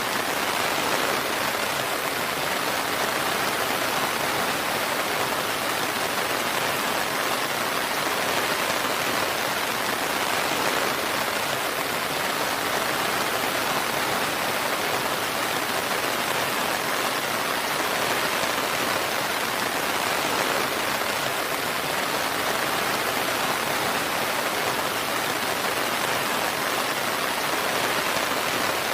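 Steady rain falling, an even hiss of drops with no breaks or thunder.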